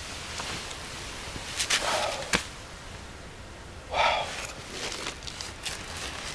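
A person shifting and settling back in a folding camp chair: rustling, two short breathy puffs about two and four seconds in, and a few light clicks.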